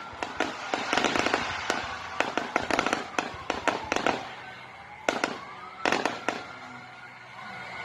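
Fireworks going off: a quick run of sharp cracks and pops over the first few seconds, then two short bursts of crackling about five and six seconds in, thinning out toward the end.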